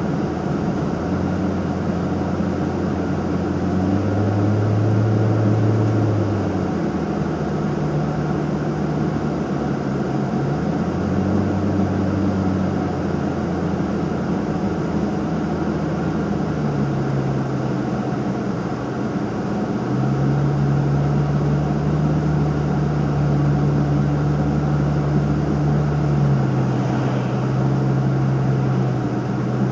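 A Nissan Fuga 350GT's 3.5-litre V6 with a one-off quad-outlet exhaust, heard from inside the cabin while driving. A steady low engine drone runs over road and tyre noise, and the engine note steps up and down in pitch several times.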